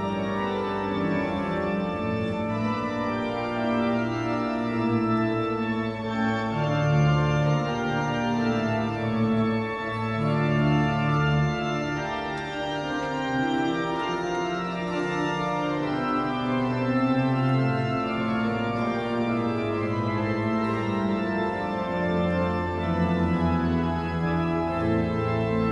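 Church pipe organ playing a prelude: full sustained chords that change every second or two over deep held bass notes.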